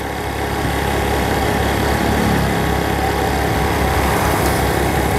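A vehicle engine running steadily while driving along a road, with road and wind noise.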